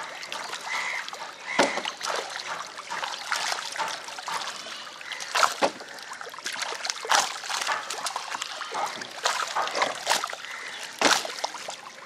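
A dense crowd of tilapia thrashing at the water's surface: a continuous churning splash, with sharper, louder splashes coming irregularly every second or so.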